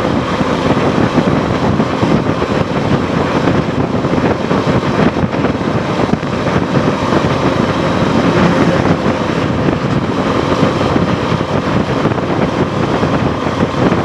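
Suzuki V-Strom SX 250's single-cylinder engine running steadily at cruising speed under a loud, steady rush of wind on the microphone.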